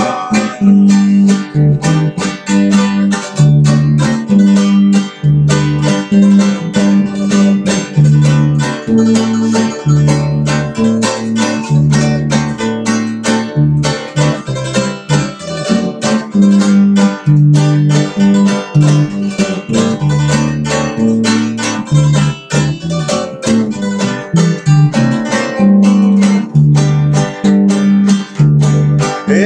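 Instrumental passage of a Salvadoran campirana song: strummed and plucked acoustic guitars over a bass line that steps between low notes at an even pace.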